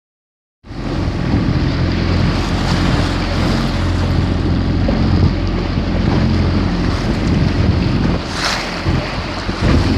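Strong wind buffeting the microphone, with a steady low hum underneath; it starts abruptly about half a second in, and a brief hissing gust comes near the end.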